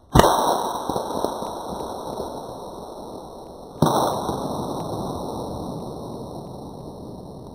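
Two rifle shots about three and a half seconds apart. Each sharp bang is followed by a long echo that slowly dies away.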